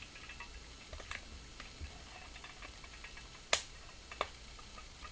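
Umarex XBG CO2 BB pistol's trigger mechanism clicking faintly as the long trigger is slowly pulled back with no CO2 loaded. There is one sharper click about three and a half seconds in and a lighter one shortly after.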